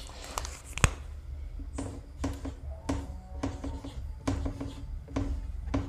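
Marker pen writing on a whiteboard: a series of short squeaky strokes, about a dozen, over a low steady hum.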